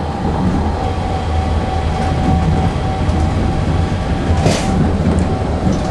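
Electric tram running along the track, heard from inside the car: a steady low rumble with a steady whine that stops about four and a half seconds in, where a short hiss sounds.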